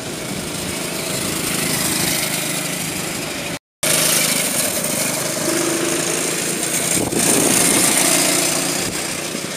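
Go-kart engines running as karts lap the track, louder near the end as one kart passes close by. The sound cuts out completely for a moment a little over a third of the way in.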